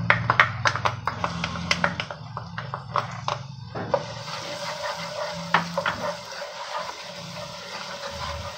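Ginger-garlic paste frying in hot oil in a non-stick pan while a wooden spoon stirs it: sharp pops and clicks for the first few seconds, then a steady sizzle, over a low steady hum.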